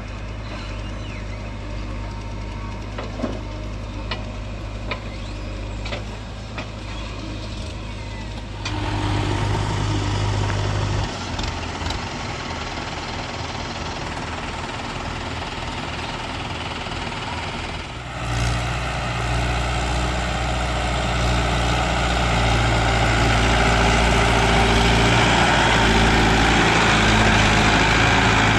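Heavy diesel machinery running steadily: a backhoe loader's engine, with tractor engines at work nearby. The engine noise steps up in loudness about nine seconds in and again at about eighteen seconds, then grows louder toward the end as the machine works under load.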